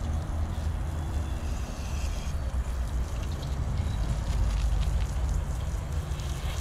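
Garden hose spray nozzle spraying water onto a car, rinsing off soap foam, a steady hiss, under a steady low rumble.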